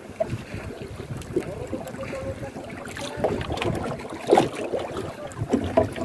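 Wind buffeting the microphone and sea water lapping against a small outrigger boat, with a couple of sharp knocks about four and six seconds in.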